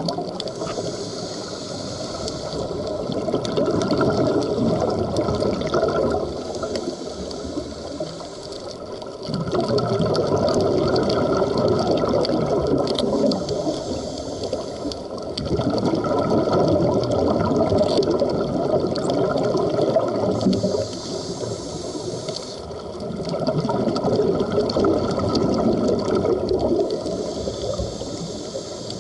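Scuba diver breathing through a regulator underwater, the exhaled bubbles rushing and gurgling out in long swells every five to seven seconds, with quieter stretches between breaths.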